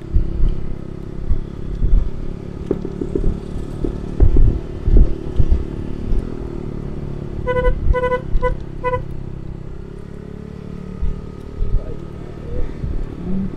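Honda ADV 160 scooter's single-cylinder engine running steadily on a long steep downhill, with a few thumps in the first half. About halfway through the scooter horn beeps several times in quick succession, a warning toot going into a blind bend.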